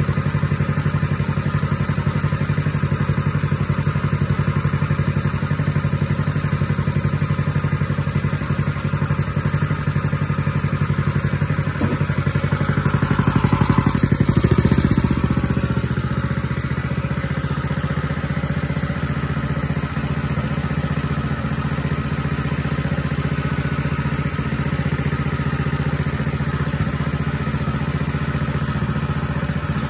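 Small gasoline engine on a walk-behind two-wheel tractor running steadily, warming up after a cold start. It gets louder for a few seconds near the middle, then settles back to an even idle.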